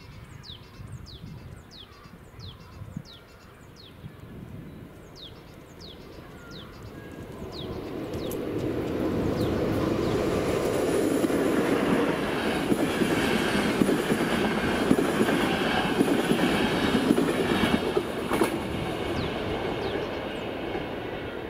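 A train passes over the level crossing. It builds up about eight seconds in, is loudest for several seconds with a high wheel squeal, then fades. Before it arrives, the crossing's warning horn sounds a short falling chirp about twice a second.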